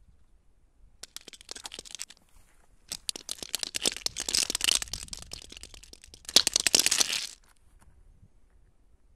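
Dry crunching and crackling close to the microphone, in three bursts: a short one about a second in, a longer one in the middle, and the loudest just after six seconds.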